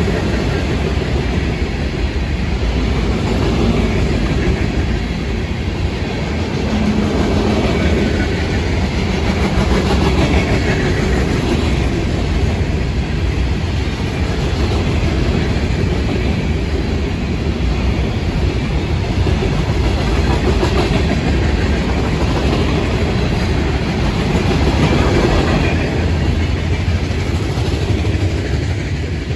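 Florida East Coast freight train's hopper cars rolling steadily past close by, steel wheels running on the rails with a continuous loud rumble of the passing cars.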